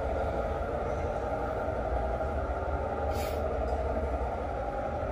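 Model diesel locomotive's onboard sound running steadily: a prime-mover hum with a low rumble, and a short air hiss about three seconds in.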